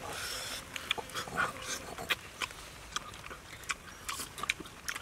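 People eating with their fingers: lip smacking and chewing, heard as a run of short, irregular clicks.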